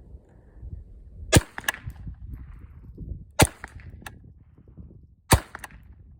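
Three shots from a .22 AR-style rifle, about two seconds apart. Each sharp crack is followed a fraction of a second later by a fainter click.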